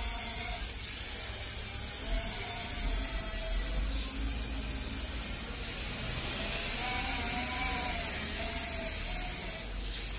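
Corby CX007 quadcopter drone's motors and propellers whining steadily in flight. The pitch dips briefly and recovers four times, over a low rumble of wind on the microphone.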